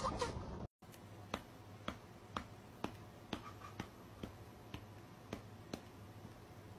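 Faint, evenly spaced clicks, about two a second, over a low hum, after a short tail of a louder voice-like sound that cuts off abruptly.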